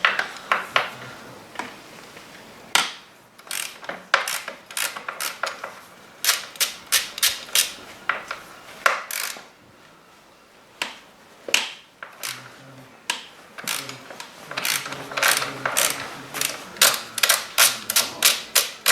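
A run of sharp metallic clicks and taps from hand tools working the front axle hardware of a Honda CRF250F dirt bike, coming in uneven bursts of a few strikes a second.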